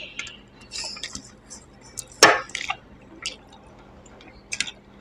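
Wet eating sounds: fingers squishing rice and fish curry on a steel plate, and chewing with lip smacks, heard as scattered short wet clicks. One louder sharp sound comes a little over two seconds in.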